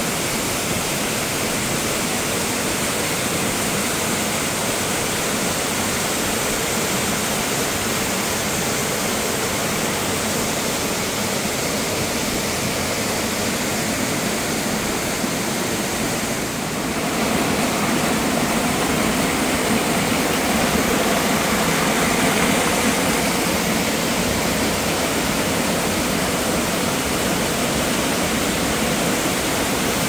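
Small mountain waterfall and the stream cascading below it, making a steady rushing of falling water. The sound dips briefly about halfway through, then comes back slightly louder.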